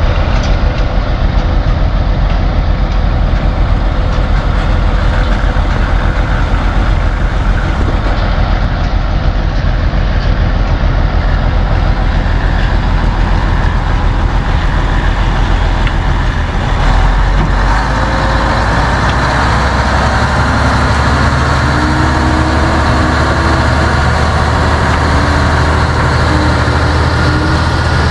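Heavy earth-moving machinery's engine running loud and steady at work; its low note changes about two-thirds of the way through.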